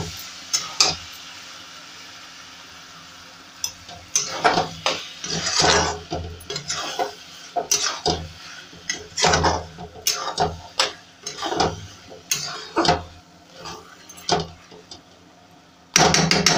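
A soft frying sizzle fades over the first few seconds. From about four seconds in, a spatula stirs peas and mushrooms in masala in a kadhai, scraping and clinking against the pan at irregular intervals.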